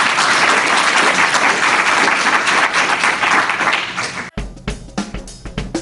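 Audience applauding. About four seconds in, the applause cuts off suddenly and drum-led music begins.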